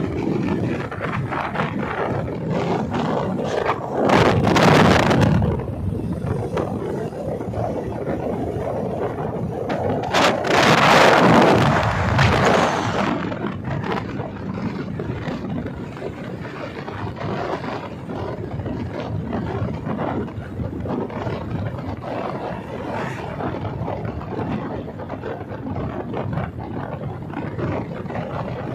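Wind rushing over the microphone of a moving motorcycle, with the ride's engine and road noise underneath. Two louder gusts come about four seconds and ten seconds in.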